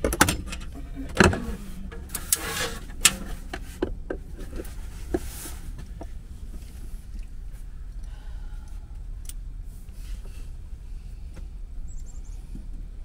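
Small metal parts and hand tools clicking and clinking as bolts are fitted to an inverter's battery terminals: several sharp clicks in the first few seconds, then quieter, scattered ticks of handling.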